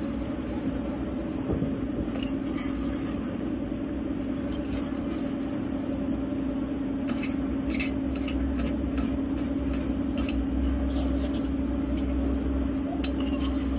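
A steady mechanical hum with a low rumble under it, and from about seven seconds in a run of light clicks of a spoon knocking against the aluminium pot as the crab curry is stirred.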